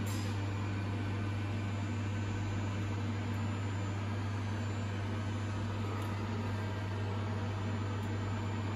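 Steady electrical hum of workshop machinery idling, with an even fan-like hiss over it; no welding arc is heard.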